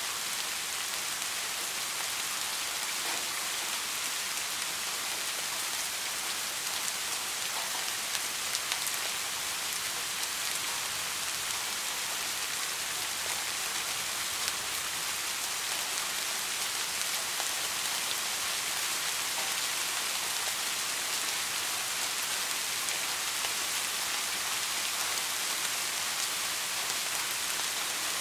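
Soft, steady rain: an even hiss of many drops, with an occasional single drop ticking a little louder.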